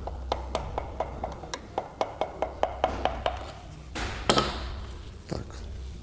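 Light taps of a wooden hammer handle on an aluminium piston crown, about five a second, driving the ringed piston out of a ring compressor into the G4KD engine's cylinder bore. The tapping stops about three seconds in, when the piston is home, and a couple of louder knocks follow about a second later.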